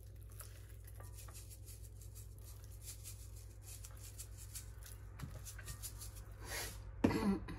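Plastic spice shaker of mixed pepper shaken over a raw whole chicken, the granules rattling in many light, irregular ticks, with hands handling the bird. A brief louder rustle or knock comes near the end, over a steady low hum.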